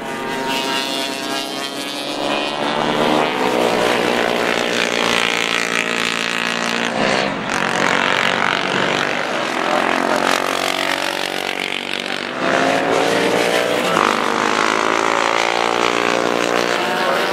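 Several classic racing motorcycles passing at speed, engines running hard, with overlapping engine notes rising and falling as the bikes go by and change gear. It gets louder about two-thirds of the way through as a bike passes close.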